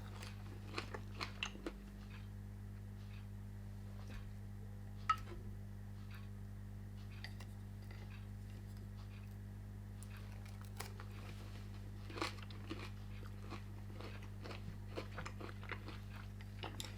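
A person chewing and crunching food close to the microphone in faint, scattered clicks, with one sharper crunch about five seconds in, over a steady low hum.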